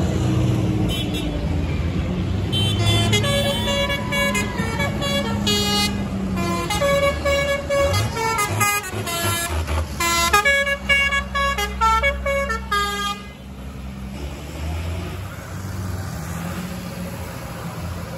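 A musical vehicle horn toots out a tune of short notes for about ten seconds over the steady rumble of passing tractor engines. The tune stops about thirteen seconds in, leaving the engines.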